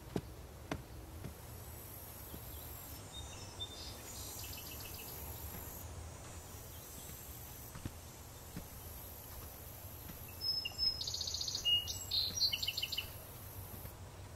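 Outdoor nature ambience: bird or insect chirping in quick trills of evenly repeated high notes, loudest about ten to thirteen seconds in, over a steady high insect hiss and a low background rumble.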